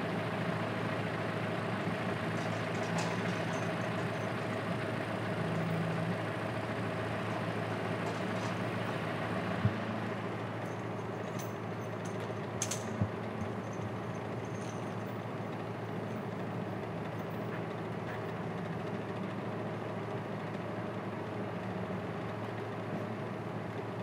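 Balboa Island ferry's engine idling steadily. A single sharp knock comes about ten seconds in, and a few light clicks follow a few seconds later.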